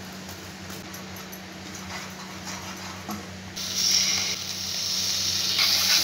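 Hot masala sizzling loudly in a kadhai as a ladle of liquid is poured in about three and a half seconds in, the hissing dipping briefly and then building again and staying loud to the end. Before that only a steady low hum.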